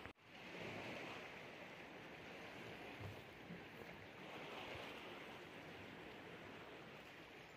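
Faint, steady wash of river water moving along a concrete bank.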